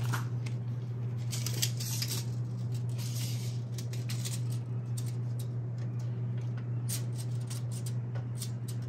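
Light clicks and rustling from a tape measure being pulled out and handled, over a steady low hum.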